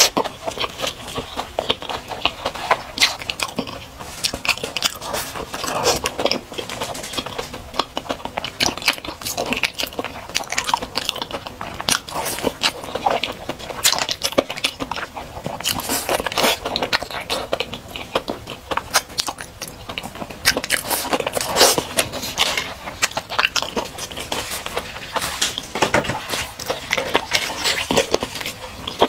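Close-miked biting and chewing of crispy, chili-coated fried chicken: rapid, irregular crunches and crackles, one after another.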